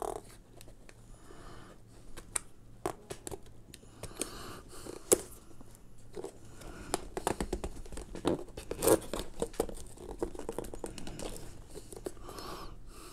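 Cardboard product box being worked open by hand: fingers rub, scrape and pick at the card, with irregular crackles and sharp snaps of card being pulled, the sharpest about five and nine seconds in.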